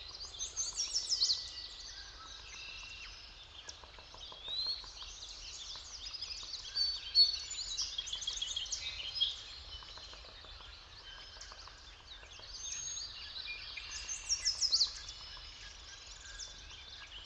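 A forest chorus of several songbirds singing and chirping at once, with overlapping trills and whistles. The loudest are rapid descending trills about a second in and again near the end, over a faint low rumble.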